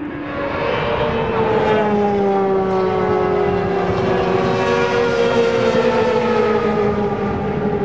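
Several racing sport bikes' engines at high revs, passing close by; a high engine whine whose pitch falls slowly over several seconds. It grows louder about half a second in.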